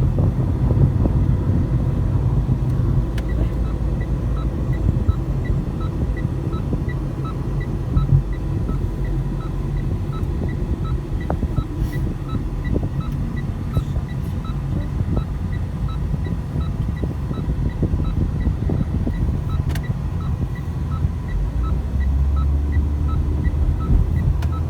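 Steady road and engine rumble inside a moving car's cabin. A few seconds in, a regular ticking starts, about two clicks a second, typical of a turn-signal relay.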